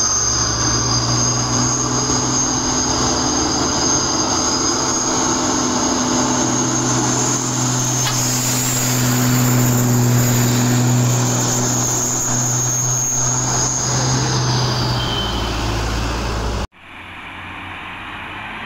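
Heavy truck engine running close by as the truck passes slowly, a steady deep drone with a high whine over it. About 17 seconds in the sound cuts off abruptly, and quieter engine noise from approaching trucks builds up.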